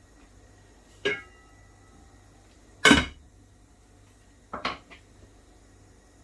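Metal cookware knocking and clattering against the cooking pan. There are three separate knocks: one about a second in that rings briefly, the loudest about three seconds in, and a quick double clatter near the end.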